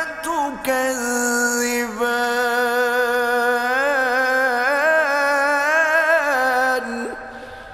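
A male qari chanting the Quran in melodic tajweed style, holding one long ornamented note that wavers and turns in pitch. It ends about seven seconds in and its echo dies away.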